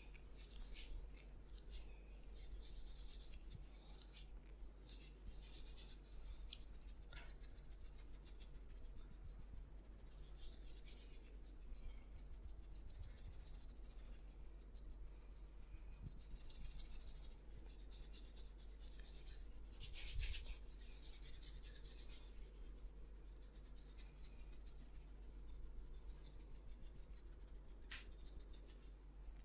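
Hands rubbing and kneading oiled skin during a massage: a faint, steady rustling hiss of friction, with now and then a sharper stroke.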